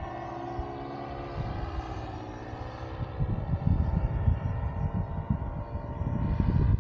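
Paramotor engine and propeller of a powered paraglider in flight, a steady drone with a slightly wavering pitch. From about three seconds in, gusts of wind buffet the microphone and partly cover it.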